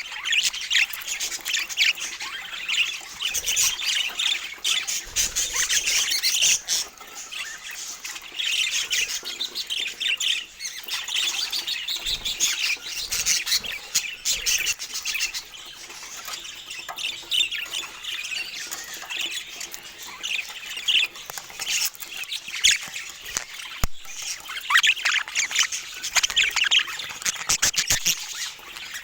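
Budgerigars chattering without pause: a continuous mix of quick chirps, squawks and warbling.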